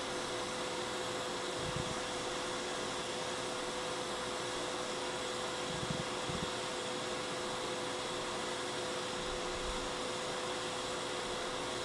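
Hot air rework station blowing at its highest air setting: a steady rush of air with a steady hum, as it heats a TDP158 chip to melt its lead-free solder for removal.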